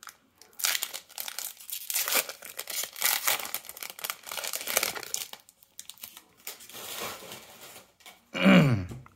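Plastic wrapper of a basketball trading card pack crinkling and tearing as it is opened and the cards are pulled out. Near the end comes a short, louder sound that falls in pitch.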